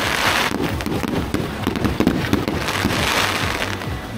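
Aerial fireworks bursting overhead, a rapid run of crackling pops with two swells of hissing crackle, one at the start and another about three seconds in.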